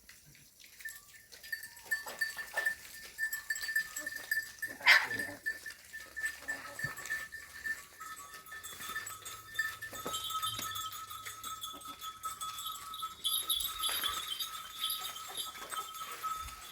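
Farm livestock bleating in short, scattered calls, with one loud bleat about five seconds in, over a faint steady high tone.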